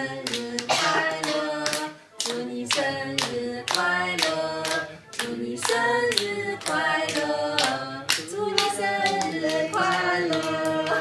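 Two adults singing a birthday song to a small child while clapping their hands in a steady rhythm.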